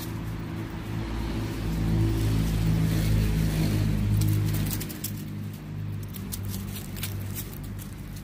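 A motor vehicle engine running with a steady low hum, louder for a few seconds in the middle, then easing off. Light clicking and rustling in the last few seconds.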